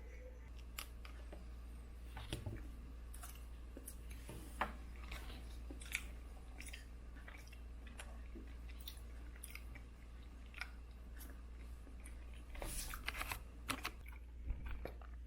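A person chewing and biting food close to the microphone: scattered soft crunches and mouth clicks, with a denser run of them about 13 seconds in.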